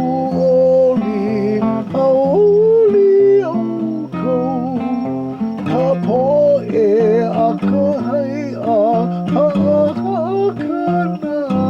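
Voice singing a Hawaiian hymn (himeni) with acoustic guitar accompaniment, the melody wavering in vibrato over steady bass notes.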